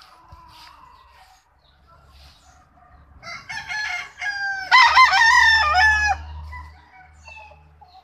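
A game rooster crowing close by, starting about three seconds in and lasting about three and a half seconds, loudest in its second half.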